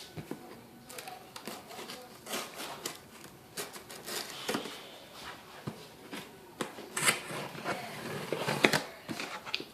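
Shipping package being handled and opened by hand: irregular rustling, scraping and sharp clicks of cardboard and packing material.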